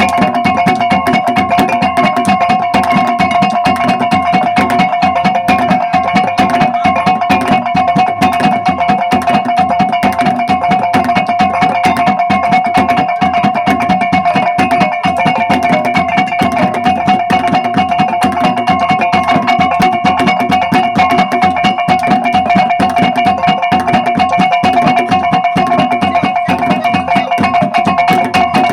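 Traditional Ngada (Bajawa) gong and drum ensemble playing: gongs ringing steadily under a rapid, unbroken drum beat.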